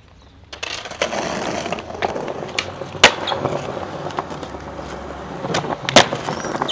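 Skateboard wheels rolling on smooth pavement, starting about half a second in, with sharp clacks of the board hitting the ground. The loudest clacks come about three seconds in and again near six seconds, with several smaller knocks between them.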